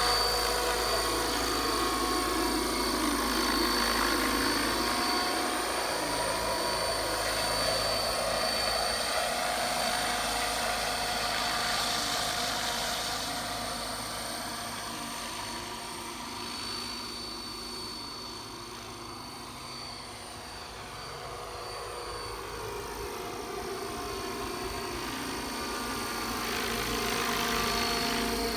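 Align 600-size RC model helicopter in flight: the steady whine of its motor and gearing over the rotor noise, fading somewhat around the middle and growing louder again near the end.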